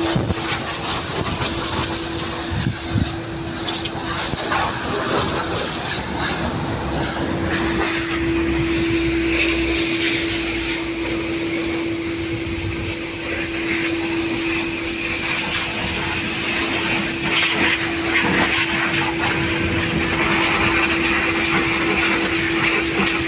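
IPC C22 pressure washer running steadily: a constant motor hum holding one steady tone, with a noisy hiss over it.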